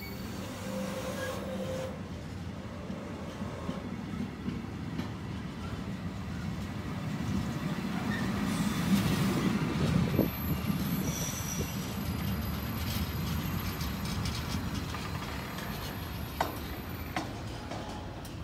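Intermodal container freight train rolling past close by: a steady rumble of wagon wheels on the rails, swelling to its loudest about halfway through, with a few faint brief wheel squeals and short clicks near the end.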